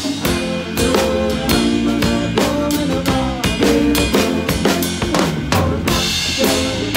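Drum kit played up close in a live band: a steady beat of snare and bass drum hits with cymbals, over the band's sustained pitched instruments. A cymbal crash rings out about six seconds in.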